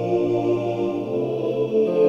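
Bassoon and a computer-played Gregorian-style choir holding slow, sustained chords, moving to a new chord near the end.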